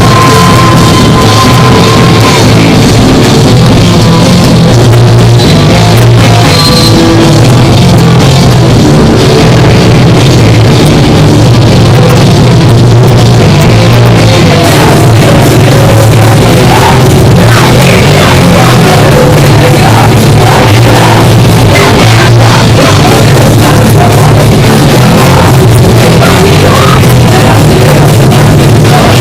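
Punk rock band playing live, loud and dense with no let-up, the recording saturated near full level.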